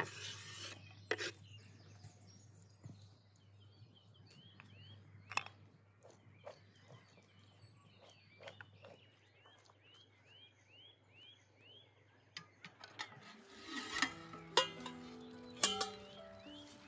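Chopped onion scraped off a wooden cutting board into an enamel bowl, followed by a few light clicks and knocks. A bird calls with short rising chirps, about one a second, in the middle stretch. Near the end, liquid is poured from a pot into a wide pan, with uneven gurgling tones.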